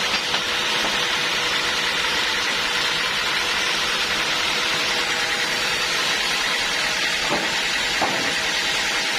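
Sawmill machinery running steadily, a continuous hiss-like noise with a few faint steady tones under it.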